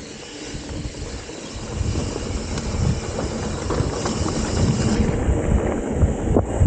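Mountain bike rolling fast down a dirt trail: wind on the microphone and tyre rumble, with the bike rattling over bumps. The noise grows louder about two seconds in as speed picks up, and there is a sharp knock near the end.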